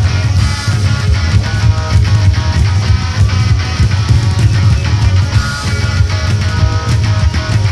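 Anarcho-punk rock recording: electric guitar over bass guitar and steady drum beats.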